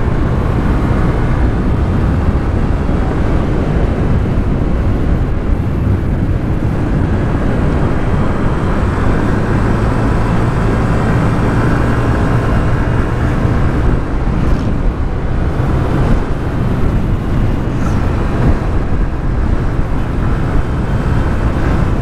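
Honda Vario 125 scooter's single-cylinder engine running steadily while the scooter is ridden, heard from on board with its road and air noise.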